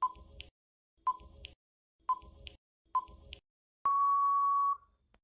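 Countdown-timer sound effect: four short beeps about a second apart, then one longer beep about four seconds in.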